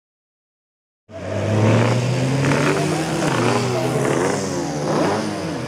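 Silence for about a second, then a pack of classic racing motorcycles revving hard as they pull away from the start grid, several engines rising and falling in pitch over one another.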